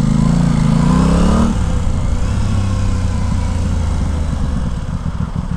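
Aprilia Tuono 660 parallel-twin engine pulling under acceleration, its note rising. About a second and a half in, the note drops away suddenly, leaving a rough low rumble and wind rush.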